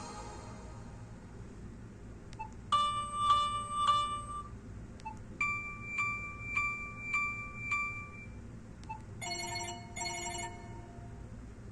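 BlackBerry Curve 9300 preloaded ringtones played one after another through the phone's speaker. First comes a short beeping melody of quick repeated electronic notes. Then a longer phrase of evenly spaced double tones, then two brief chiming bursts, with a faint blip before each new tone.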